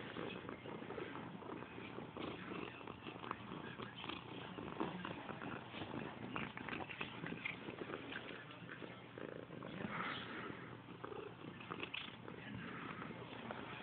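Domestic cat purring steadily, with small wet clicks of chewing as it eats ham from a person's fingers.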